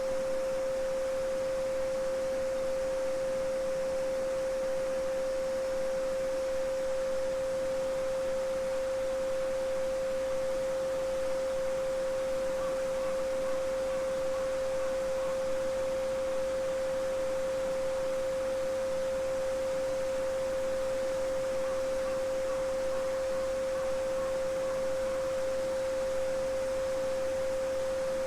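A steady pure 528 Hz sine tone held without change, over the soft even rush of a babbling brook.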